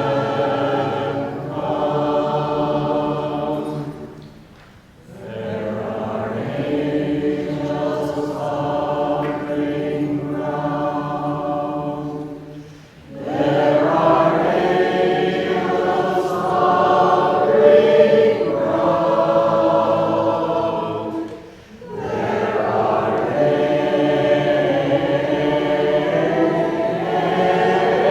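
A small vocal group singing a song together in harmony. The sung phrases are long and held, with a brief pause for breath between phrases about every eight to nine seconds.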